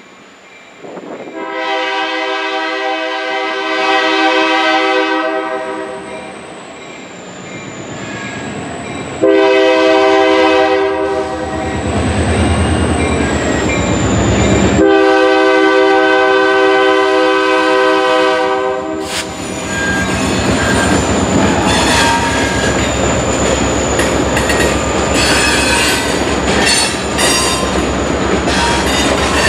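EMD SD40-2 diesel locomotive sounding its multi-note air horn in three long blasts as it approaches a road crossing. Then, about two-thirds of the way in, the locomotive passes close by and its covered hopper cars roll over the crossing, the wheels clattering with some high squeal.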